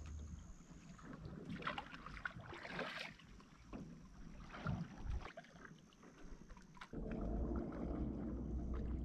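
Canoe paddle strokes dipping and splashing softly in calm river water, irregularly about once a second. About seven seconds in, they give way to a steadier low rush of water along the canoe's hull.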